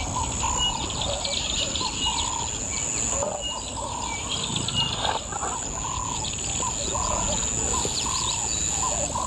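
Birds calling in the bush: one gives a short, arched call over and over, roughly once every half second to a second, while others chirp and trill higher up. A steady high-pitched drone runs underneath.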